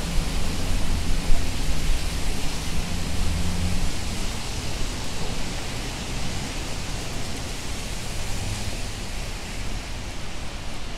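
Rainy city street: a steady hiss of rain and wet-road traffic, with a vehicle engine's low hum that fades out about four seconds in.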